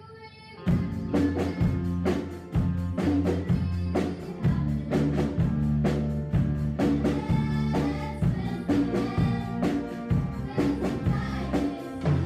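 A children's school band of keyboards, electric guitars and saxophone starts playing a song about a second in, with a steady drum beat. Young girls sing into microphones over it.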